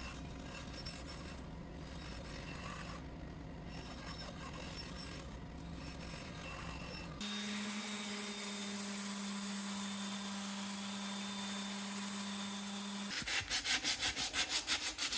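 Power tools working a cherry wood cutting board, in three cut-together stretches. First comes a rough, even working noise. About seven seconds in, a steady motor hum takes over, and about thirteen seconds in, rapid rhythmic rubbing strokes.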